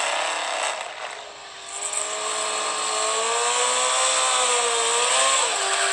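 Kawasaki ZX-14 sport bike's inline-four engine held at high revs during a rear-tyre burnout, its pitch wavering up and down and then dropping near the end, over a steady hiss.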